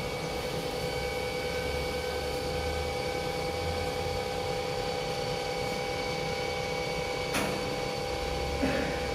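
CNC milling machine running steadily, a constant motor hum and whine holding several fixed pitches, with a single sharp click about seven seconds in.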